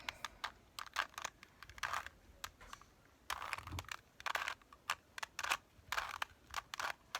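A Rubik's cube being twisted by hand: irregular plastic clicks and short rasps as its layers turn.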